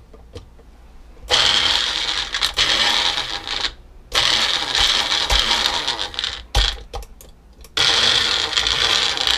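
Magic Bullet personal blender pulsing chunks of raw cauliflower in three runs of two to three seconds each, the motor whine mixed with pieces rattling and knocking in the cup. It is chopping unevenly, leaving a lumpy clump in the middle.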